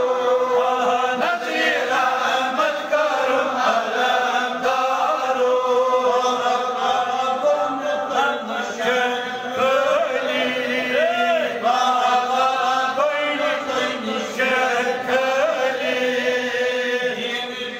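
Devotional chanting: a voice recites in drawn-out melodic phrases, its pitch rising and falling.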